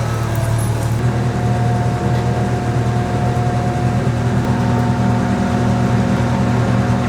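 ASV PT100 compact track loader's Perkins diesel engine running steadily while working, with a steady whine over the engine note. The sound gets a little fuller and higher about a second in.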